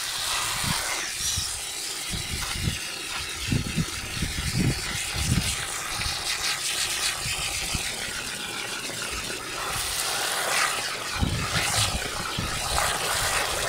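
Water from a garden hose spray nozzle pouring into a plastic bucket of soaking wheat, a steady rushing hiss as the bucket fills.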